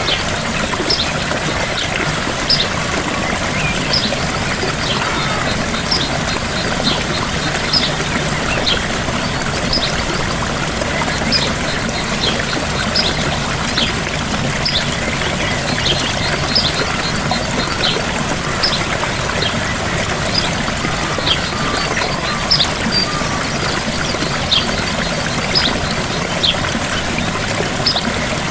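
A gentle waterfall pouring steadily, with a bird repeating a short high call every second or two.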